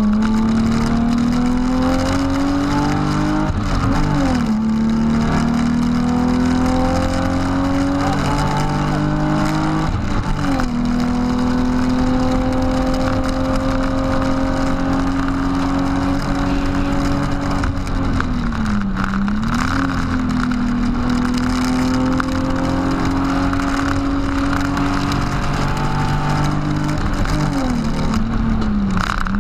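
BMW E36 328i's straight-six engine under full throttle, heard from inside the cabin. It climbs in pitch through the gears, with two upshifts in the first ten seconds. It then holds high revs on the straight, dips briefly for a short lift about two-thirds through, and comes off the throttle with downshifts near the end.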